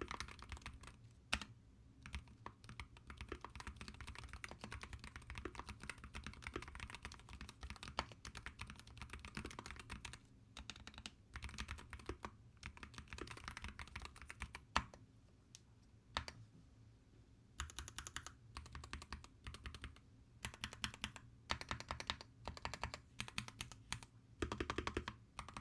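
Typing on a SteelSeries Apex Pro Gen 3 wireless keyboard with magnetic switches: quick runs of keystroke clicks broken by short pauses, with a few louder single strokes.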